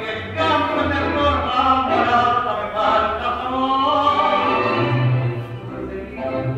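Tango vals music: a recording of a singer with an orchestra.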